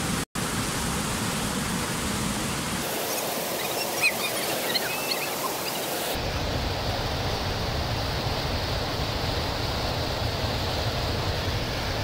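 River rapids: white water rushing and churning over boulders, a steady dense rush of noise. It cuts out for an instant just after the start and changes character abruptly twice, about 3 and 6 seconds in, as different stretches of rapids are spliced together; a few faint high chirps sound in the middle.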